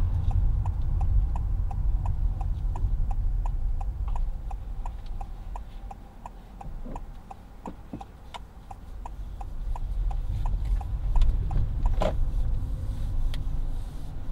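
Car's turn indicator ticking steadily, about three ticks a second, over the low engine and road rumble inside the cabin. The rumble eases in the middle and builds again, and there is one brief knock near the end.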